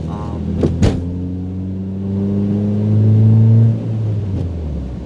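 1995 Mazda MX-3 engine with an aftermarket header-back exhaust, heard from inside the cabin while accelerating: the revs climb steadily and grow louder, then fall away sharply about four seconds in. Two sharp knocks come just under a second in.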